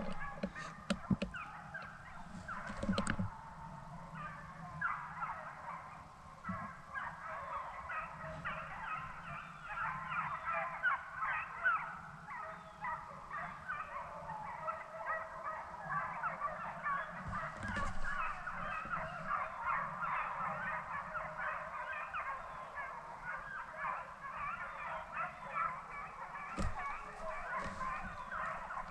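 A pack of deer hounds in full cry on a chase, many dogs baying at once in a dense, overlapping chorus that swells through the middle. There are a few sharp knocks near the start.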